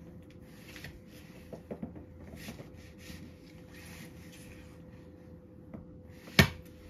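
Snow shovel scraping over snow in short strokes, roughly one a second, under a steady faint hum. A single sharp knock about six seconds in is the loudest sound.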